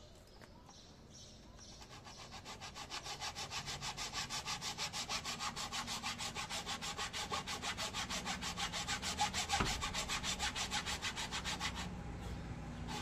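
Hacksaw cutting across a laminate floor plank by hand, in quick, even back-and-forth strokes. The sawing starts about two seconds in, grows louder, and stops shortly before the end.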